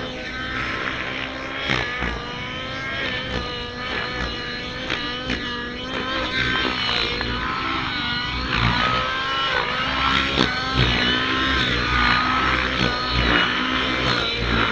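Nitro-powered RC helicopter's glow engine running hard, its pitch rising and falling again and again as the rotor is loaded through aerobatic manoeuvres.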